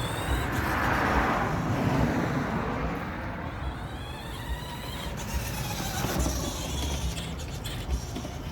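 Electric drive motors of a Spin Master Grave Digger Mega RC monster truck running as it is driven, a whine rising and falling in pitch over a rough rushing noise that is loudest about a second in.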